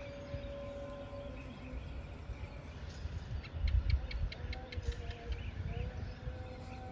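Outdoor ambience: a low, gusty rumble like wind on the microphone, a steady hum that steps up and down in pitch, and about three seconds in a quick run of about a dozen sharp chirps, roughly five a second, from a small animal.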